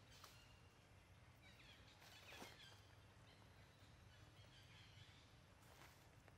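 Near silence: faint outdoor background with a few faint, short, high chirps around two seconds in and again near the end.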